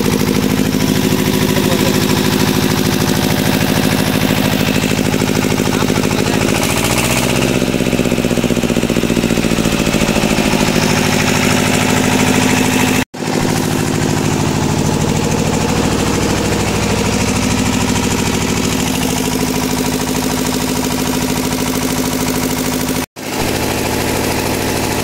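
Diesel engine of an old 10 kVA generator set running steadily. About seven seconds in, its speed dips briefly and recovers. The sound cuts out for an instant twice.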